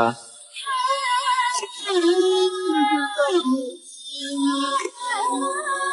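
Background music: a Chinese ballad, its melody line carried over the accompaniment.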